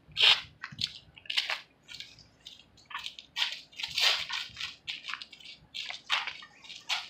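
Light boxing sparring: a string of short, irregular sharp hits and scuffs from gloves and footwork, the loudest just after the start.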